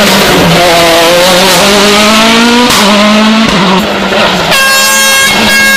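Rally car engine revving hard under acceleration, its pitch climbing, dropping at a gear change, then climbing again. About four and a half seconds in, a steady air horn starts suddenly over the engine.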